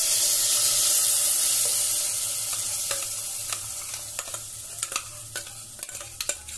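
Wet ground masala paste hitting a hot pan and sizzling loudly, the hiss fading slowly over several seconds. From about halfway through come sharp clinks of the spatula and jar against the steel pan as the paste is scraped out.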